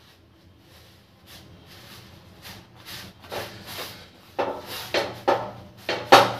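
A folded cloth pressing and rubbing a roti on a hot tawa to puff it up: a series of short brushing, scraping strokes that grow louder, with sharper ones in the second half.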